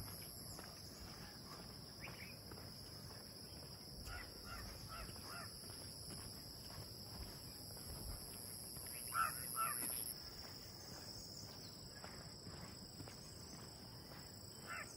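Insects droning steadily at a high pitch in hillside vegetation, with a second, higher drone that stops about ten seconds in. A few short calls cut through, the two loudest about nine seconds in.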